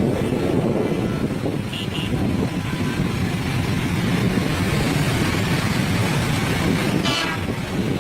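Steady noise of vehicles moving along a road, engines and tyres running without a break.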